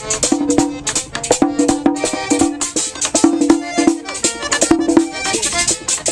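Music: a steady, quick percussion beat of sharp strokes under pitched instrument notes.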